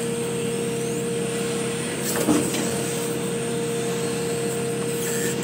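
Excavator engine and hydraulics running steadily under load while the bucket digs in a trench, heard from the cab, with a steady whine throughout. A single knock about two seconds in.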